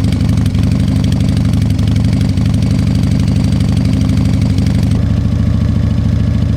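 Harley-Davidson Evolution 1340 V-twin idling through Screamin' Eagle exhaust, with the loping uneven beat known as the "potato potato potato" sound. The engine note shifts slightly about five seconds in.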